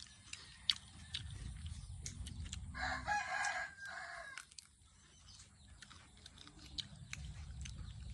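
A rooster crows once, a call of about a second and a half starting about three seconds in, over a low background rumble and scattered sharp clicks.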